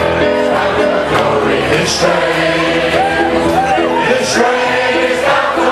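A crowd of people singing a gospel song together in chorus, with instrumental accompaniment.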